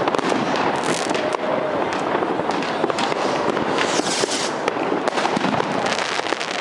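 Fireworks going off continuously: a dense run of sharp cracks and bangs, with rushes of hiss about a second in and again around four seconds in.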